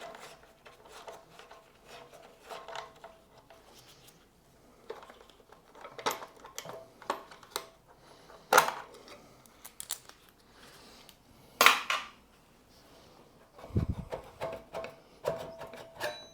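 Scattered metallic clinks and knocks as the motorcycle's exhaust silencer is worked off its pipe and handled, with a dull thump near the end.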